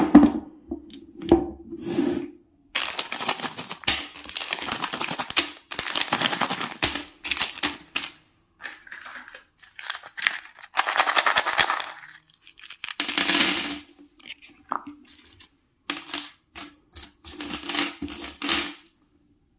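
Plastic Cadbury Gems candy packets crinkling and being torn open by hand, in several bursts of rustling. Small sugar-coated chocolate buttons click and rattle as they are tipped out and set down on a paper sheet.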